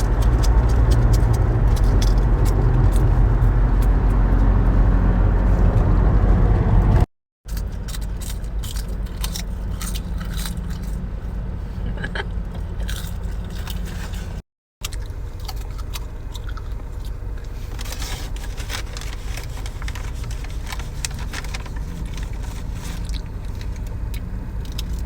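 Crispy seaweed snack being bitten and chewed, with many sharp crackling crunches over a steady low rumble. The sound drops out twice for a moment.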